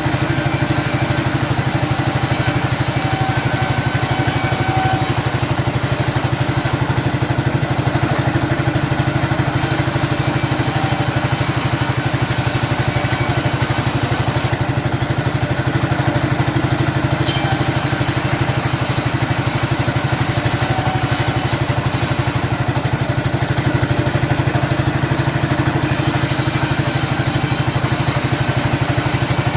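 Sawmill's engine running steadily at a constant speed. Three times, for a few seconds each, the high hiss above it drops away.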